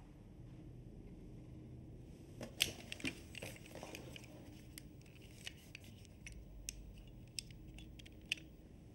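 Small handling noises and sharp clicks of hands working at an object on a table: a cluster about two and a half seconds in, the loudest of them, then single clicks roughly once a second.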